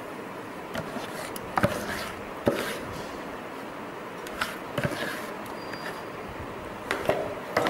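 Batter being scraped out of a bowl into a stainless steel pot with a spatula: several short, sharp clinks and knocks of the utensils against the pot's metal rim, spread over a steady background hiss.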